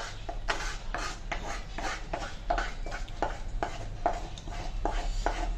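Wooden spatula scraping thick fish masala out of a blackened pan onto a banana leaf: short, uneven scrapes and taps, about two or three a second, over a steady low hum.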